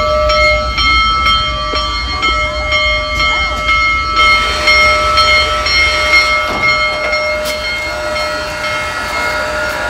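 Union Pacific Big Boy No. 4014 steam locomotive rolling slowly past: a low rumble from the engine and wheels, under steady ringing tones, likely the locomotive's bell ringing as it moves. The rumble eases about two thirds of the way through.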